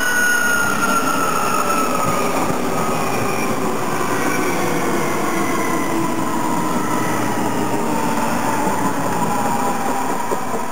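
DB Class 423 S-Bahn electric multiple unit passing close by, wheels rumbling on the rails. Its electric drive gives a whine that falls steadily in pitch.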